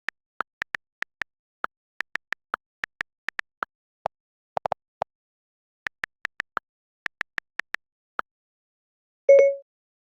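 A run of short, sharp clicks in irregular clusters, a few a second, then one short, loud beep about nine seconds in.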